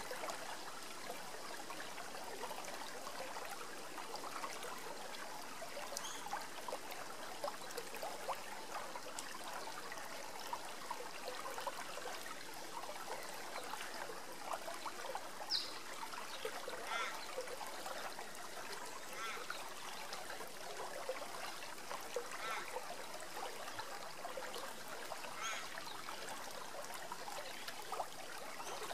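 Shallow river riffling over rocks: a steady, even babble of water. A few brief, faint high chirps come through over it in the second half.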